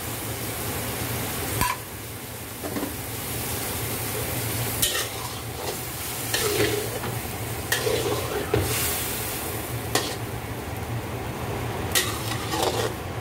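Metal spatula and ladle stirring and scraping in a steel wok, with sharp clinks against the pan every second or two, over the steady sizzle of the sauce as a cornflour-and-water slurry is stirred in to thicken it.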